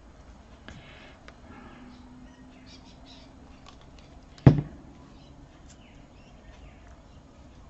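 A single sharp knock about halfway through, over faint bird chirping in the background.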